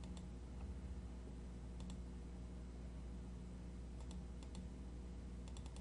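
Computer mouse clicking: a few faint, sharp clicks, some in quick pairs and a short cluster near the end, over a steady low hum.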